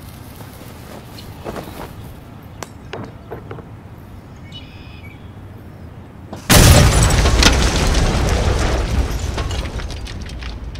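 An explosion about six and a half seconds in: a sudden loud blast, then a rush of crackling noise that fades away over about four seconds. Before it there is only faint outdoor ambience with a few light clicks.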